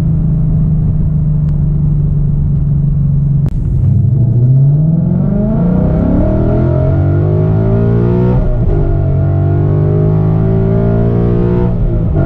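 Ford Mustang GT's V8 engine under way: a steady engine note, a brief break, then the pitch climbs as the car accelerates. About two thirds in, the note breaks again and drops back in pitch, as at an upshift, and then runs steadily.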